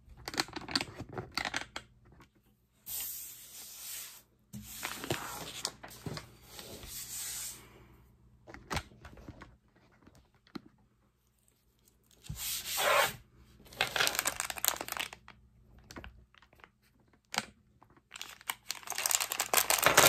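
Clear plastic packaging bag being handled and torn open, crinkling and rustling in repeated bursts, with a few light clicks of the small metal swivel snap hooks between them.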